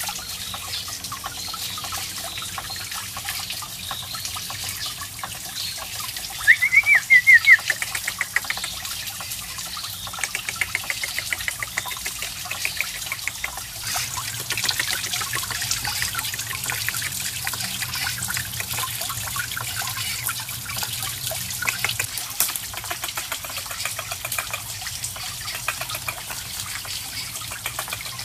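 Water running from a bamboo spout onto a small wooden waterwheel and trickling into a pond, a steady splashing trickle. About six seconds in, a brief run of high chirping calls is the loudest sound, with fainter chirps a few seconds later.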